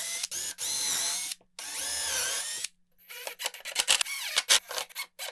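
Cordless drill with a countersink bit running twice, about a second each, its pitch rising and falling as it bores countersunk pilot holes in plywood. From about three seconds in, a cordless impact driver hammering in rapid clicks as it drives a screw.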